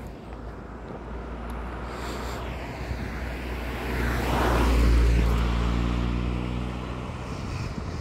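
A passenger car driving past at road speed: tyre and engine noise grows, peaks about halfway through, then fades as the car moves away, its engine tone audible as it recedes.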